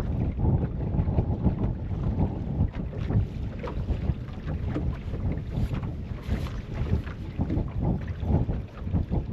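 Wind buffeting the microphone: a loud, uneven low noise that rises and falls in small gusts.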